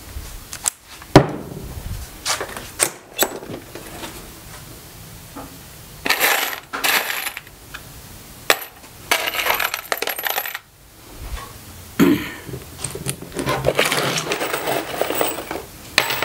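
Loose metal screws clinking and rattling as they are handled, in several one-to-two-second stretches, with sharp clicks and knocks in the first few seconds, the loudest about a second in.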